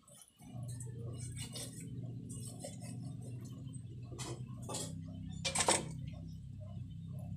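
Large knife chopping a grouper on a wooden chopping board: about five sharp knocks, the loudest about five and a half seconds in, over a steady low hum.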